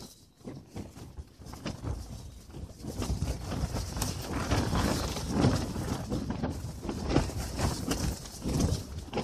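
Strong gusting wind buffeting and flapping the fabric walls of a pop-up ice-fishing shelter, with wind rumble on the phone's microphone. It is lighter at first, then builds after about two seconds into irregular swelling gusts.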